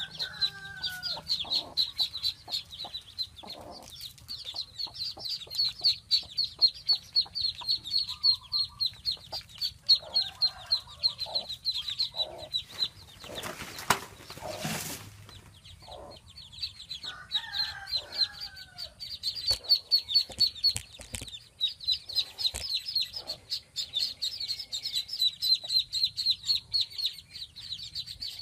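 Ducklings peeping continuously, in a fast, high-pitched stream, with a hen clucking now and then. Near the middle there is a brief rush of noise lasting a second or two.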